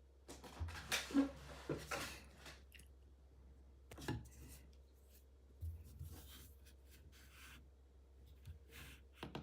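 Packaging and a small device being handled during an unboxing: faint rustling and scraping with a few sharp clicks, the busiest stretch in the first two seconds or so. A steady low electrical hum lies under it.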